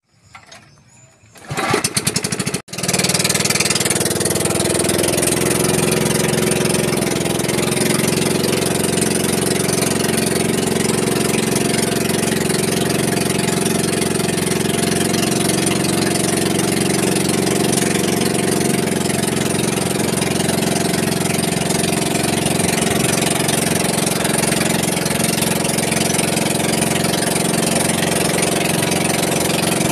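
Small outrigger pumpboat's engine starting up about a second and a half in, stumbling briefly, then running steadily and loud.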